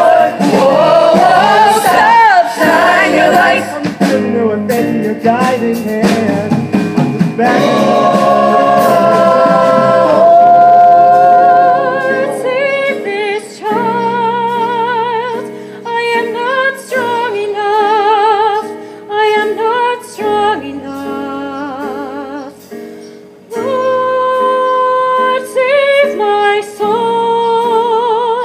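Live ensemble singing: voices hold long notes with wide vibrato, with sliding vocal runs in the first few seconds and short breaks between phrases in the second half.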